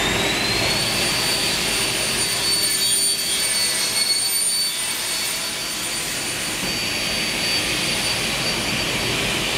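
Double-head aluminium profile cutting saw running, a steady high whine over a rushing noise. The whine rises in pitch over the first second as the saw comes up to speed.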